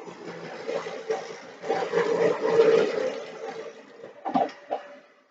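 Dyson DC65 Animal upright vacuum cleaner running: a rushing airflow that swells and fades in loudness. Two short knocks come a little after four seconds, and the sound dies away to nothing at the very end.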